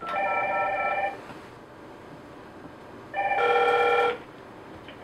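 AddPac AP-IP120 IP desk phone ringing with an electronic multi-tone ring, signalling an incoming call from an emergency intercom call box. There are two rings, each about a second long and about three seconds apart.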